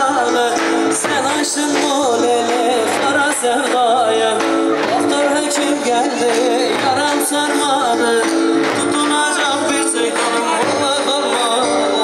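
Turkish folk dance music played live by a wedding band: a wavering, ornamented melody over held notes and a steady percussion beat.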